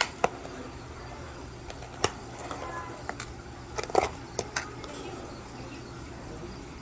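Handling noise: a few scattered sharp clicks and light rustles, clustered around four seconds in, over a steady low hum.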